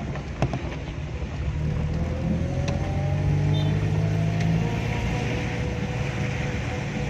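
Engine of the vehicle being ridden in, heard from inside the cabin: it picks up speed, its pitch rising from about a second and a half in to the middle, then runs steadily. Tyres hiss on the wet road throughout.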